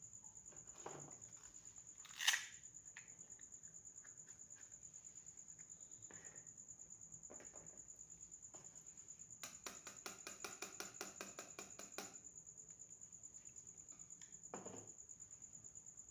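Small plastic toy pieces being handled: soft knocks, a sharp click about two seconds in, and a rapid run of ticks lasting about two and a half seconds, over a steady high cricket-like chirping throughout.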